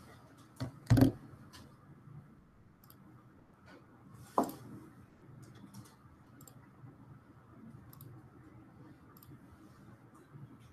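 Scattered faint clicks and taps over a steady faint room hum, with a louder double knock about a second in and another sharp knock near the middle.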